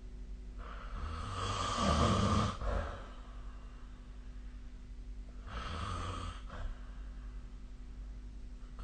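A sleeping person snoring: two snores a few seconds apart, the first longer and louder than the second. A steady low hum runs underneath.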